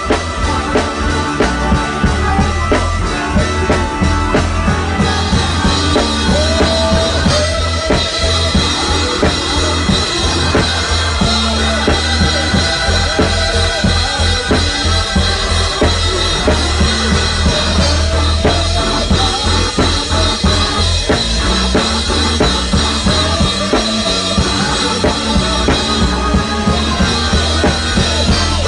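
Live band music with a drum kit played close by, keeping a steady beat over a heavy bass line.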